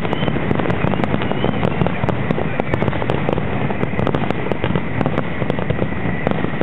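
Fireworks display: a continuous rapid barrage of bangs and crackles from many shells bursting in quick succession, without a pause.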